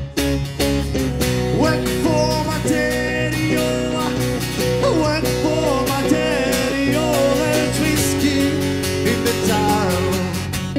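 Live band music: guitars, one of them acoustic, strummed in a steady rhythm over a low bass line, with a wavering lead melody on top.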